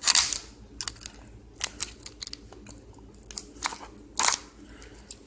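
Plastic wrapping on a log of snuff tins crackling and snapping as one tin is cut and pulled free with a knife: a series of sharp, irregular crackles, loudest at the very start and again about four seconds in.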